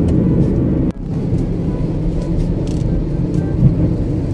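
Steady low road rumble inside a moving car's cabin: engine and tyre noise heard from the passenger seat. It breaks off for an instant about a second in, then carries on the same.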